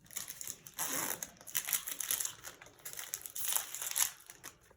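Plastic foil wrapper of a football trading-card pack crinkling in repeated crackly bursts as it is handled and opened, stopping shortly before the end.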